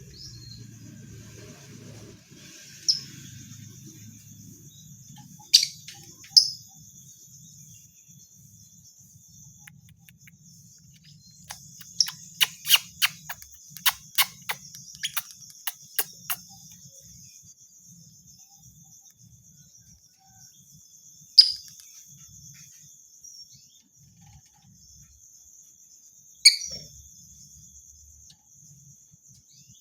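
Lovebird giving sharp, shrill single chirps, with a quick run of about ten chirps in the middle: a lure call meant to set other lovebirds chirping in reply. A steady high-pitched insect trill runs underneath.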